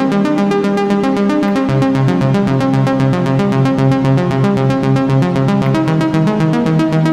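Behringer Crave analog monosynth playing a fast step-sequenced arpeggio riff of short, evenly spaced notes with a thick pulse-width-modulated tone. The pattern shifts to lower notes about two seconds in.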